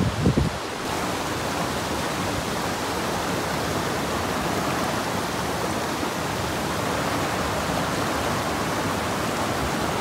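Shallow mountain stream rushing steadily over rocks, after a brief low rumble in the first second.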